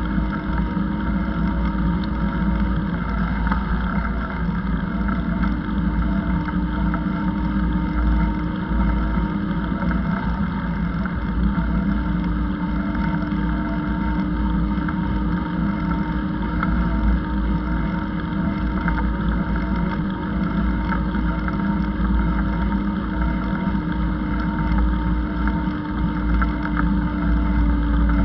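A steady mechanical drone made of several held tones, one of them slowly rising in pitch near the end, over a low wind rumble on the microphone.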